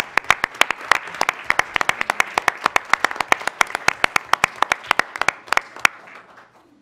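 Audience applauding at the end of a speech: many people clapping, with a few sharp claps close by standing out, dying away near the end.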